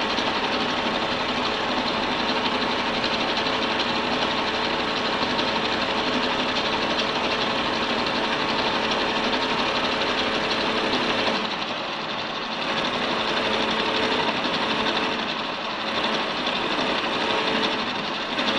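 Milling machine with a 30 mm end mill cutting metal: a steady machining noise over a hum of several steady tones. It eases briefly about twelve seconds in and again near sixteen seconds.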